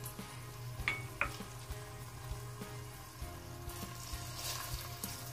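Oil sizzling in a hot frying pan around a bell pepper ring as a tofu and vegetable filling is spooned into it, the sizzle growing livelier near the end. Two sharp clicks sound about a second in.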